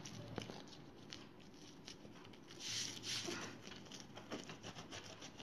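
Pizza cutter pressed and rolled through a freshly baked pizza's crust, making faint crackles and scrapes, with a louder scraping stroke about two and a half seconds in.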